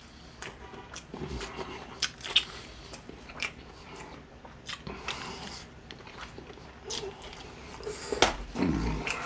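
Crispy fried chicken being bitten and chewed close to the microphone: irregular sharp crunches of the breading, with quieter wet chewing in between.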